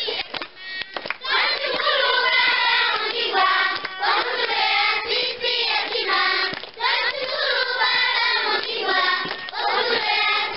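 A group of children singing a thank-you song together, with hand clapping. The singing comes in about a second in and goes in phrases with short breaks between them.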